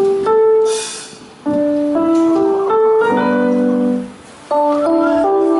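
Stage keyboard playing held piano chords, the chord changing every second or so, with two short dips in level about one and four seconds in.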